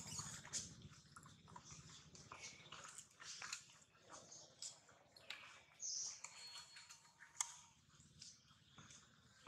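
Faint scattered clicks and crackles of a macaque biting and tearing a dry corn husk and shifting on dry leaves, with one sharper click about seven and a half seconds in.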